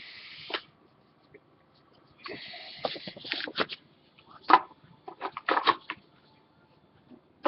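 Trading cards being handled: two short hissy slides of card against card, near the start and about two seconds in, then a run of light taps and clicks.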